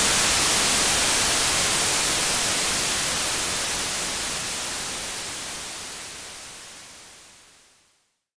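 Static hiss, strongest in the high end, fading away steadily until it is gone about eight seconds in.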